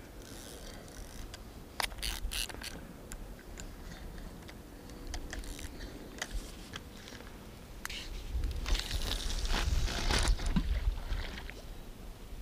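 Fishing tackle being handled close to the microphone: a quick run of clicks and scrapes a couple of seconds in, scattered ticks, then a louder stretch of rustling with a low rumble near the end.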